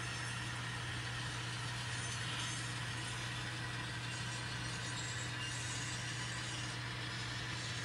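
Sound-equipped model diesel locomotives running in a consist: steady diesel engine sound from their small onboard speakers, with a constant low hum and the whir of the running gear.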